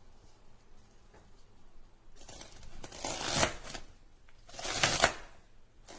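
Two bursts of rustling, scraping handling noise, the first starting about two seconds in and the second near the end.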